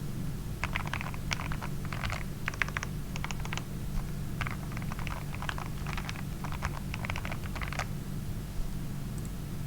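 Typing on an RK100 mechanical keyboard with lubed Gateron Milky Yellow linear switches, a memory-foam-filled and tempest-modded case and PBT keycaps: runs of quick keystrokes that stop a couple of seconds before the end.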